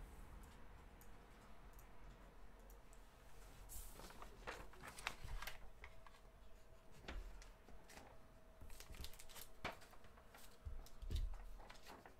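Quiet handling noises at a desk: scattered light clicks and soft rustles. A faint steady hum comes in about halfway through.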